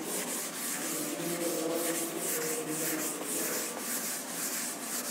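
Board duster wiping chalk off a chalkboard in quick, even back-and-forth strokes.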